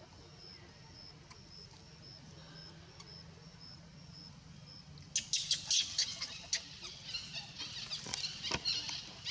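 Leaves and twigs rustling and crackling in a sudden burst of many sharp clicks about five seconds in, as a monkey moves through the foliage close by. Before that there is only a faint high chirp repeating about twice a second over a low hum.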